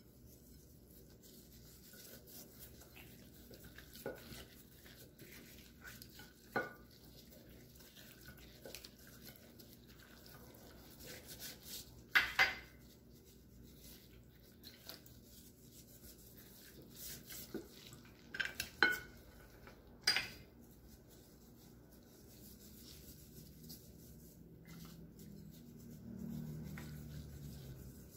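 Gloved hands rubbing salt over a raw whole chicken on a ceramic platter, a soft handling sound broken by a few sharp clinks of dishware, the loudest about twelve seconds in and another cluster around nineteen to twenty seconds. A faint low hum comes in near the end.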